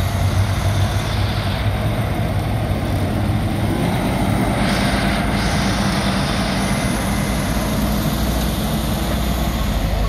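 Diesel engines of concrete mixer trucks running, a steady low drone, with a brief hiss about five seconds in.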